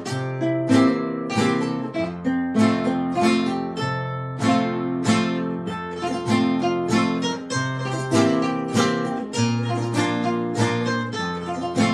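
Requinto, a small high-tuned guitar, playing a quick picked melodic intro with steady strummed chords underneath.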